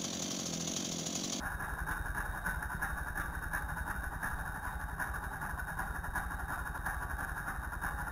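Stihl MS 170 chainsaw's small two-stroke engine. For the first second or so it runs with a higher, brighter sound, then it changes abruptly to idling with a rapid, even putter.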